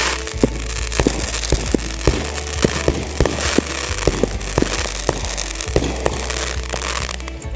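Fireworks popping and crackling: many sharp, irregular pops, several a second, over a hissing crackle.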